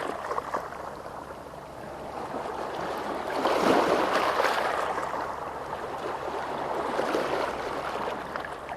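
Sea waves washing in, one swell building to its loudest about four seconds in and then slowly ebbing.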